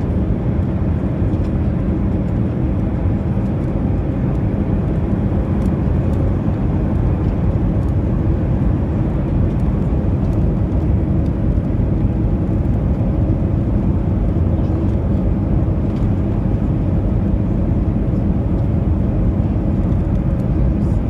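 Steady cabin noise inside a flying Airbus A320: an even rumble of engines and airflow that is strongest in the low end, with a faint steady hum.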